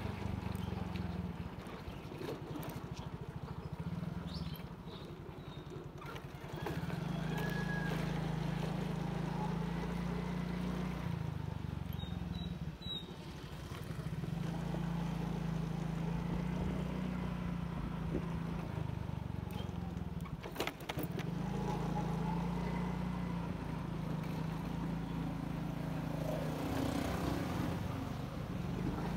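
Motorcycle engine running while riding at an easy pace, a steady low hum that steps up and down in level every few seconds, with a few brief clicks around the middle.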